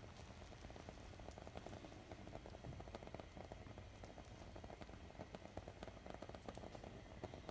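Thickened milk simmering in a steel pan: a faint, steady crackle of tiny bubbles popping.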